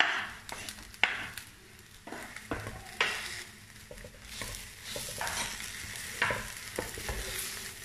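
Wooden spatula stirring and scraping soaked basmati rice, vegetables and pineapple pieces around a pan, in irregular strokes about once a second, over a light sizzle as the rice fries before the water goes in.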